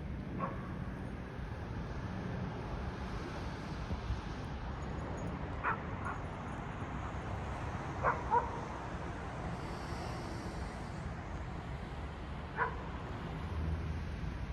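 A dog barking in short, separate barks, about six of them spread out, two quick pairs near the middle, over a steady low hum of city background.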